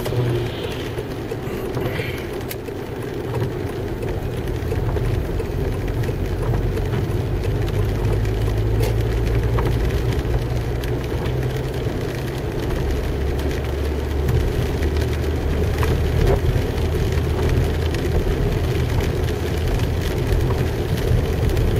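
Car cabin noise while driving on a wet road: steady engine and tyre noise, with the engine note dropping lower about halfway through.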